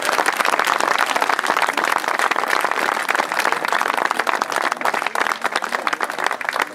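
A small crowd applauding, many hands clapping steadily and densely.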